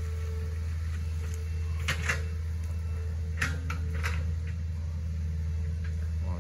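Hitachi ZX48U mini excavator's diesel engine running steadily under hydraulic load, with a thin steady whine and a few sharp knocks from the bucket and arm about two seconds in and again around three to four seconds in as it digs and lifts mud.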